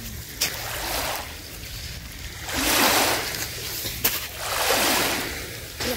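Small lake waves lapping and washing over a pebbly sand shore, with three swells of wash about two seconds apart over a steady low rumble.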